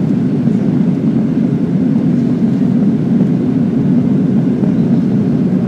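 Jet airliner cabin noise during the climb after take-off: the engines and the air rushing past the fuselage make a steady, deep, even rumble.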